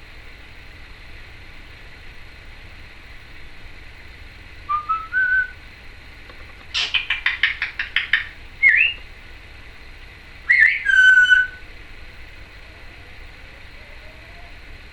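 Timneh African grey parrot whistling short rising notes, with a quick run of about ten clicks in the middle and a louder whistle, rising then held, near the end.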